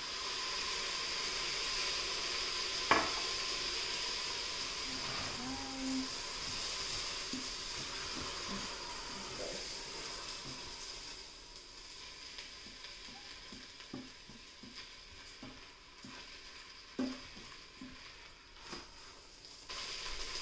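A splash of chicken broth hits the hot inner pot of an Instant Pot on sauté and sizzles loudly at once. The sizzle dies down over about ten seconds while a spatula stirs the rice and knocks against the metal pot, sharply about three seconds in and again near the end.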